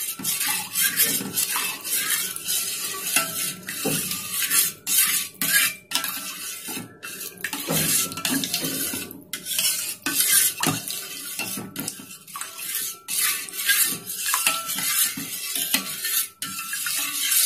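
Steel spoon stirring in a stainless steel pot of milk curdling with vinegar, scraping and clinking against the pot's sides and bottom in an irregular run of strokes.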